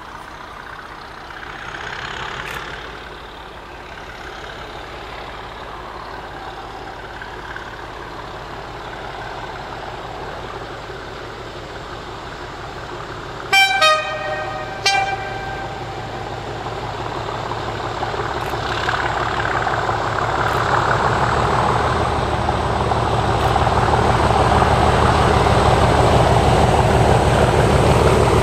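BR Class 37 diesel locomotive 37264 approaching, its English Electric engine growing steadily louder as it nears. About halfway through it sounds two short blasts on its horn.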